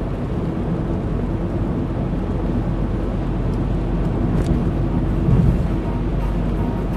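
Steady low rumble of a car's engine and tyres on the road, heard inside the cabin while driving.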